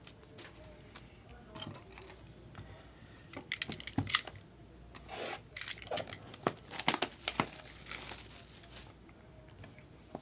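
Plastic shrink-wrap being torn and crinkled off a trading-card box, with sharp crackles and handling clicks. It is busiest and loudest through the middle few seconds.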